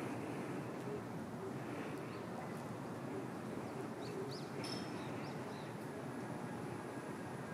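Steady outdoor background noise, with a few short, high bird chirps about four seconds in.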